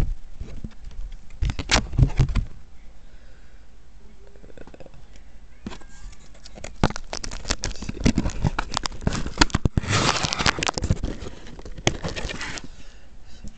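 Paper and cardboard rustling and crinkling as the contents of a shipping box are handled: a short burst about a second and a half in, then a longer busy stretch of crackling from about halfway to near the end.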